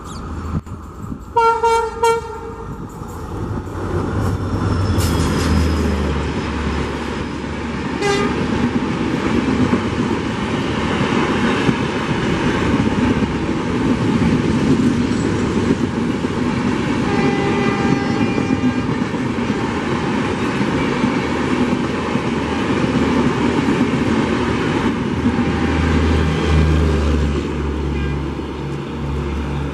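An Indian Railways diesel locomotive sounds two short horn blasts, then an express train passes at speed: a low engine rumble and the continuous rush and clatter of wheels on rail as the coaches go by.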